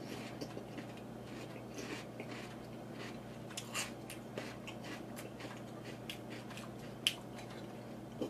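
A mouthful of crunchy chocolate frosted flakes in milk being chewed: soft, irregular crisp crunches, with two sharper clicks near the end, the louder about seven seconds in.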